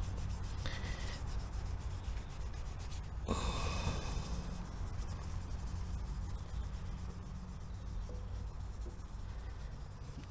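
0000-grade wire wool rubbed by hand over a motorcycle's alloy engine casing: steady scrubbing, with one sharper, louder stroke about three seconds in.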